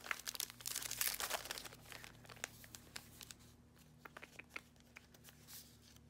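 Paper rustling and crinkling as sheets of paper labels are leafed through and handled, busiest for about the first two seconds, then a few scattered light rustles and ticks.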